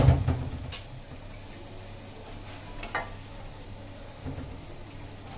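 Cookware handling: a loud thump right at the start, then a few lighter knocks and clacks, as raw chicken pieces go into a steel pot of fried masala with a wooden spatula resting in it.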